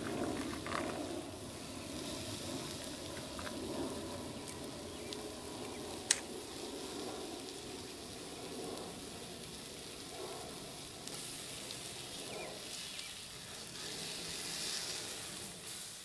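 Steak sizzling in a cast-iron skillet over a wood fire, a steady frying hiss with the fire crackling now and then and one sharp pop about six seconds in.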